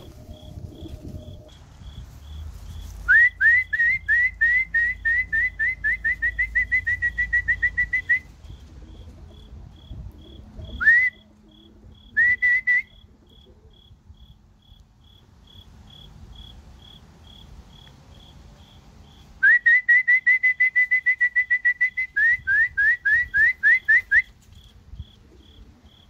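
A person whistling to call racing pigeons down into the loft: runs of quick rising whistle notes, several a second. There are two long runs, with a single note and a short burst between them. A cricket chirps faintly and steadily underneath, about twice a second.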